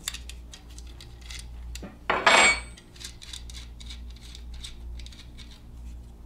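A wrench and a steel welder ground clamp clinking as the clamp's 14 mm terminal nut is worked by hand: a run of small metal clicks and taps, with a louder metallic rattle about two seconds in.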